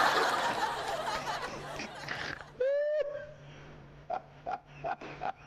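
A person laughing in short repeated pulses in the second half. A loud, noisy sound dies away over the first two seconds, and a brief high-pitched cry comes just before the middle.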